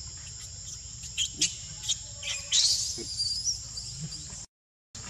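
Steady high drone of forest insects, broken about a second in by several short, high-pitched squeals from a baby macaque, the loudest about two and a half seconds in. The sound drops out briefly near the end.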